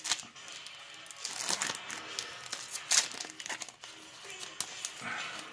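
Foil trading-card pack wrapper crinkling as it is handled and torn open, in irregular crackly rustles.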